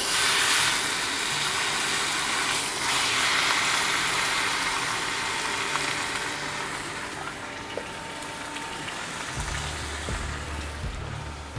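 A tomahawk steak seared in a buttered cast iron skillet on an induction burner: it starts sizzling hard the moment it goes into the hot pan, then settles to a steady, slightly softer sizzle.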